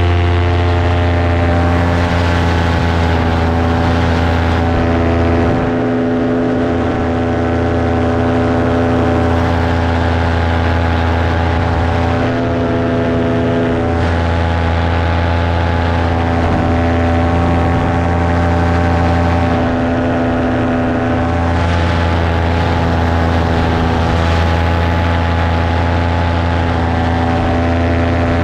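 Paramotor engine and propeller running steadily under power in a climb, its pitch holding level throughout.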